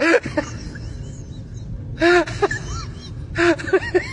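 Several domestic cats meowing in short, overlapping calls, each rising and then falling in pitch. The calls come in clusters: at the start, about two seconds in, and again near the end.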